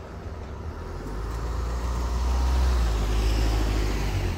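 A road vehicle passes, its engine and tyre noise swelling to a peak about two and a half seconds in, then easing off.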